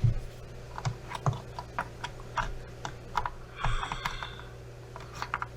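Scattered light clicks and taps of small hand tools and wires being handled, with a short scratchy rustle about three and a half seconds in, over a steady low hum.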